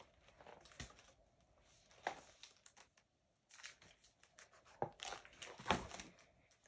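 Pages of an open picture book rustling and bumping as the book is lifted up, turned to show the pictures, and laid back down: a few short, irregular crinkles and soft knocks, the loudest near the end.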